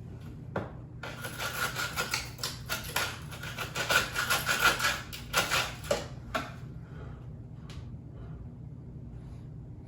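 A tool scraping and chipping rapidly into a wall, hard material behind the wall surface, for about five seconds and then stopping. A few single knocks follow.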